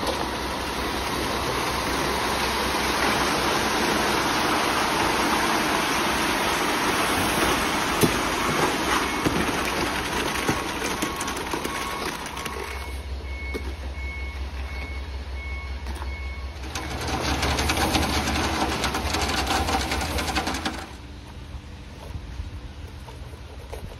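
Ready-mix concrete truck running while concrete pours down its chute, with a reversing alarm beeping at an even pace for several seconds partway through.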